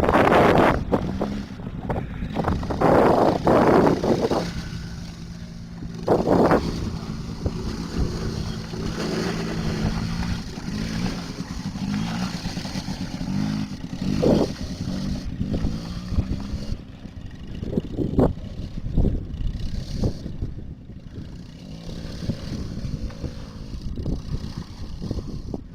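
ATV engine running at a steady hum for much of the time, fading in the latter part. Gusts of wind buffet the microphone several times and are the loudest sounds.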